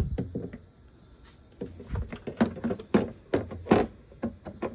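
Plastic tail light housing being pushed onto the liftgate: a string of irregular clicks and knocks, the loudest about three seconds in.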